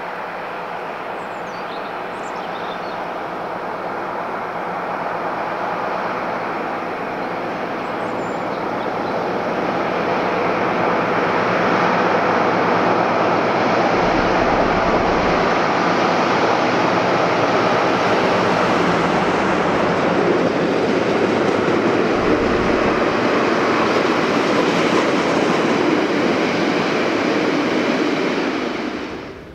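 Diesel locomotive working hard under power as it passes. The engine noise builds as it approaches, holds loud and steady, and cuts off suddenly near the end.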